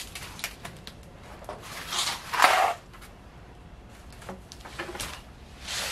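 Handling noises as a wooden sewing-machine tabletop is unpacked, its foam packing pulled off and the top laid on the floor: light clicks and knocks, with a loud scraping rustle lasting under a second about two seconds in, and another near the end.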